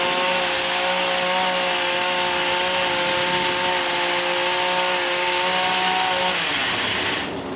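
Gas chainsaw running at a steady high speed with an unchanging pitch, cutting tree wood. It stops abruptly near the end.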